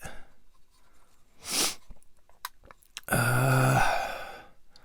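A man sighs: a short breath about a second and a half in, then a longer voiced sigh that fades out, with a few faint clicks in between.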